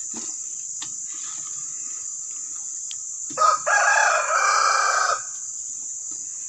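A rooster crows once, a call of nearly two seconds starting about halfway through, over a steady high chirring of crickets.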